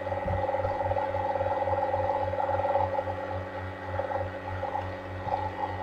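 Steady low background hum made of several held tones, the lowest one pulsing evenly about three times a second.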